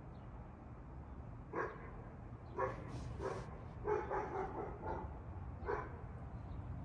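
A dog barking: a run of short barks, about half a dozen spread over four seconds, several close together in the middle.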